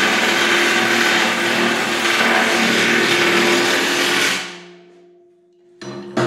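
An electric power tool's motor running steadily at full speed, then dying away about four seconds in. Another loud sound starts just before the end.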